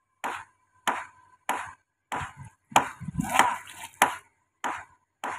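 Repeated chopping blows, about ten sharp hits in a steady rhythm of roughly one every 0.6 seconds, each with a short ring, stopping abruptly near the end.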